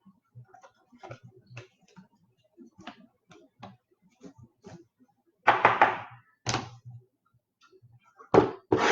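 Trading cards being handled on a table: light clicks and ticks as cards are flicked and slid one by one, with a few louder rustling thumps about halfway through and again near the end.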